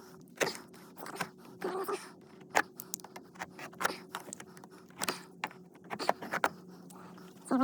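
Irregular clicks, taps and short scrapes of hands working at a dryer vent duct connection to disconnect it, over a steady low hum.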